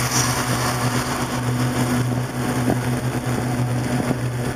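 Cream pouring into a hot skillet with a roux, sizzling with an even hiss that is a little brighter as it first hits the pan, over a steady low hum.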